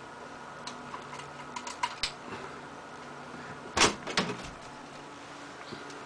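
A PC case side panel being unfastened and taken off: a scatter of clicks and knocks, loudest a little past the middle. Under them is the steady hum of the case fans.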